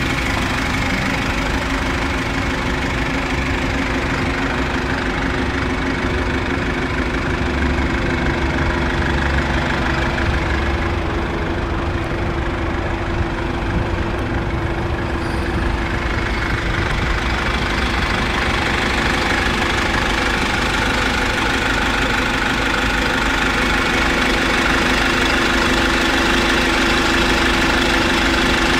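GAZelle Next bus engine idling steadily.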